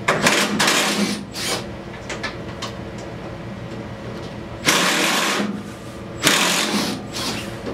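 Cordless impact driver run in three bursts, the first about a second and a half long, then two shorter ones near the end, backing out the screws on a utility vehicle's plastic console panel.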